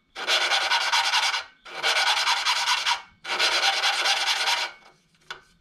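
Valve being lapped into its seat in a snowblower engine's cylinder block: a suction-cup lapping stick spun back and forth between the palms grinds the valve face against the seat with grinding paste, cutting a fresh sealing surface. The grinding comes in three spells of about a second and a half each with short pauses, then stops near the end.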